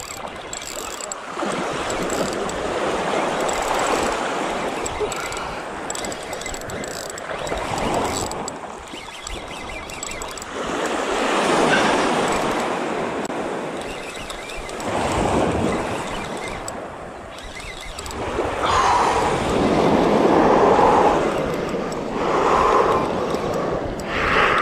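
Small ocean waves breaking and washing up the beach, the surf swelling and fading again several times.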